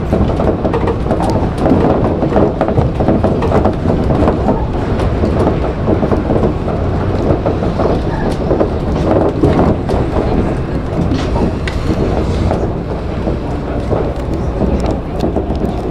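Shonan Monorail 5000-series suspended monorail car running at speed, heard from inside the driver's cab. A steady, loud running noise from its rubber-tyred bogies inside the overhead track beam, with scattered light clicks and rattles.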